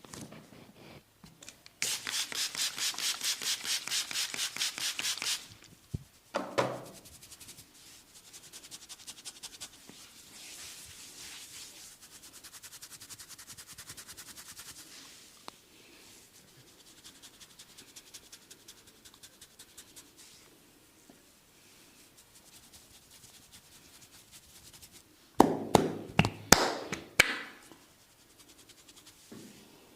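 Hands rubbing a person's head and hair during a head massage: fast, evenly repeated friction strokes for a few seconds, then slower, softer strokes. Near the end comes a quick cluster of sharp pops, the loudest sounds here.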